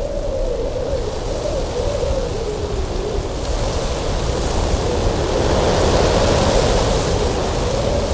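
Strong cold wind blowing in gusts, with a deep rumble and a moaning whistle that wavers up and down in pitch. A gust swells about halfway through, bringing more hiss, then eases.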